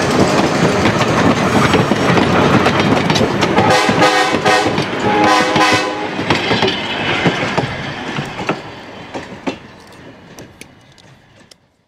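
Short diesel-hauled excursion train rolling past, its wheels clicking over the rail joints, with two horn blasts from the locomotive near the middle. The train's sound then fades away as the caboose moves off, cutting off just before the end.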